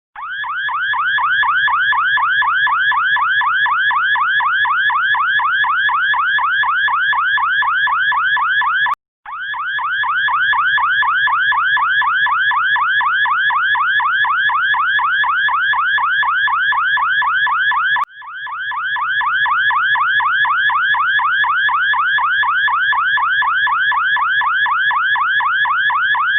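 Car alarm siren sounding a fast, repeating rising electronic sweep. It plays in three runs of about nine seconds, each cut by a brief gap.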